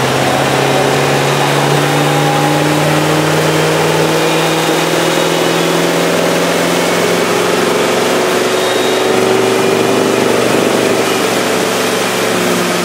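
Motorboat engine running steadily at speed while towing inflatable tubes, over the rush of water from its wake.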